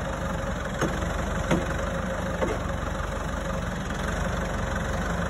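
New Holland tractor's diesel engine idling steadily, with three short sharp knocks in the first half.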